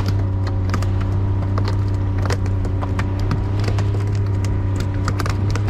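Boat motor running steadily with a low hum, with irregular sharp knocks and taps over it.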